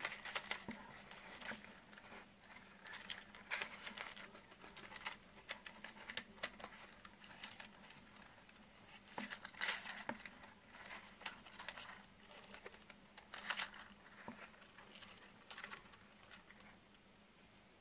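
Stiff PET-bottle plastic filament rustling against itself and the drum as coils are worked loose and pulled off the winding spool by hand: irregular scrapes and clicks of plastic on plastic, thinning out near the end.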